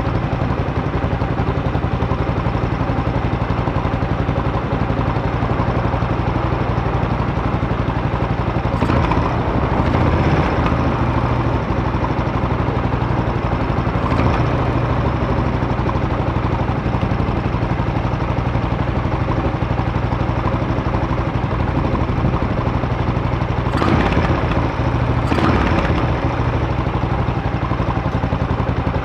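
Buell Blast's single-cylinder engine idling steadily as it warms up, with a few short throttle blips: twice near ten seconds in, once around fourteen, and twice near the end.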